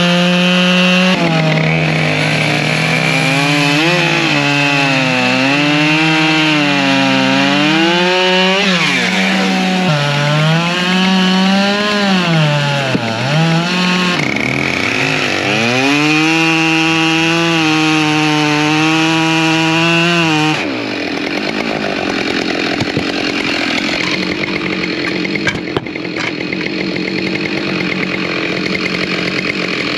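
Two-stroke chainsaw running at high revs, its pitch sagging and recovering again and again as the chain bites into wood. About two-thirds of the way through, the clear engine note gives way to a rougher, noisier cutting sound.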